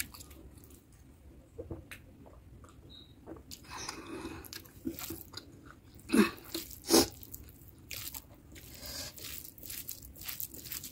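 Close-up eating sounds: chewing and mouth sounds of rice and mutton curry, with fingers squishing and mixing curry-soaked rice on the plate. Scattered small clicks, and two louder sharp sounds about six and seven seconds in.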